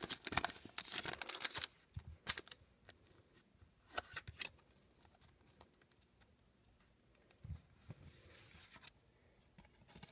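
Foil wrapper of a Pokémon trading card booster pack being torn open and crinkled, dense crackling for the first second or so, then scattered soft rustles and taps as the cards are slid out and handled.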